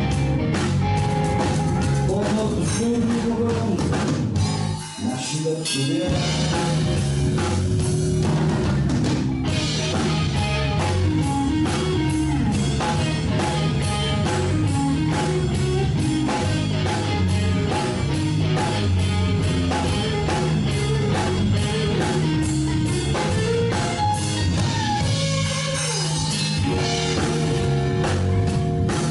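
Live blues-rock band playing electric guitars and drum kit, with a short break in the music about five seconds in before the band comes back in.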